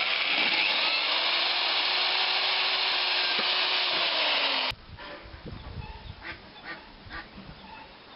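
A power tool running steadily on wood, a loud rasping hiss with a faint hum under it, that cuts off suddenly a little under five seconds in; light clicks and knocks follow.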